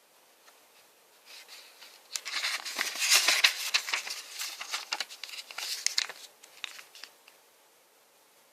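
Packaging being handled: a run of crinkling and rustling with many small crackles and clicks, starting about a second in and dying away near the end.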